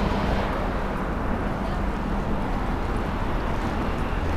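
Steady outdoor city background noise with a low hum running under it.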